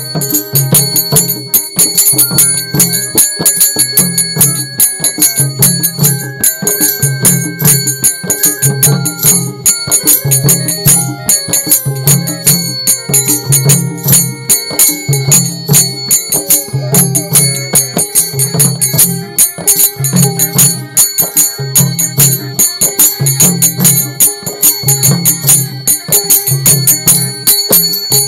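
Bengali Baul folk band playing an instrumental passage between sung verses: a hand drum beats a steady rhythm about once a second, with jingling cymbals and tambourine jingles over it and a melody line held above.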